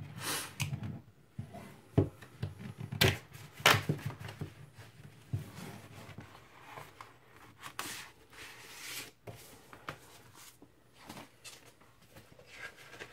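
Paper and cardboard being handled: a shrink-wrapped vinyl LP jacket and a large printed insert slid, rustled and set down on a wooden desk, with irregular sharp taps and crinkles, the loudest in the first few seconds.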